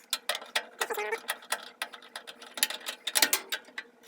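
Socket ratchet clicking in quick, irregular runs of strokes as a fastener is worked loose.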